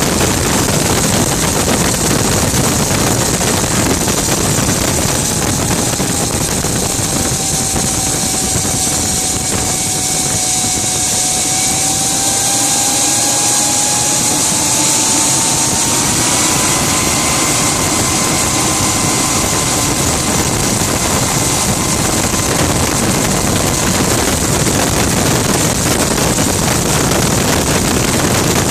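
Gas turbine engine of a Rover Jet 1 recreation running at speed, heard from the open cockpit: a steady jet-like rush with a whine that sinks slightly, then rises about halfway through and holds.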